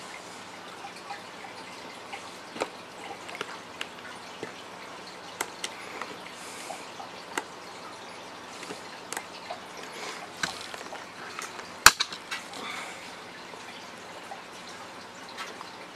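Light clicks and rustles of wires and crimp terminals being handled against a plastic tackle box lid while wire ends are terminated, with one sharp click about twelve seconds in.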